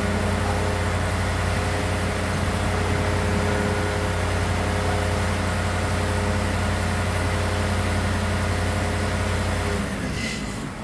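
A heavy engine running steadily at an even speed, then dropping away near the end.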